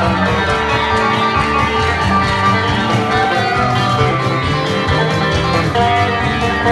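A band playing live country-bluegrass music, led by plucked acoustic string instruments.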